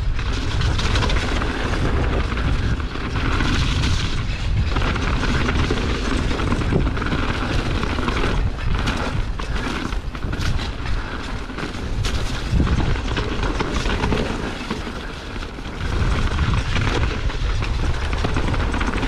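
Mountain bike descending a rough dirt trail at speed: tyres rumbling and the bike rattling and knocking over stones and roots, with heavy wind buffeting on the camera microphone.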